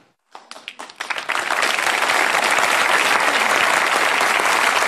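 Audience applauding: a few scattered claps after a brief silence, building within a second into steady applause.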